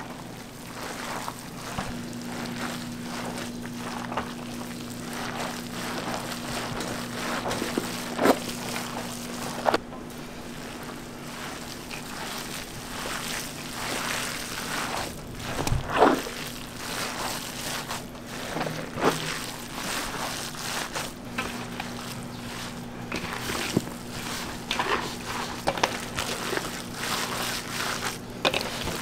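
Ground meat with chopped onion and vegetables being kneaded by gloved hands in a large stainless steel bowl: a continuous squishing, with a few louder squelches. A steady low hum runs underneath from about two seconds in.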